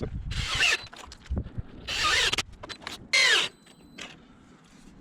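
Cordless drill run in three short bursts of about half a second each, its high pitch sliding, as it drives screws into the wooden boards.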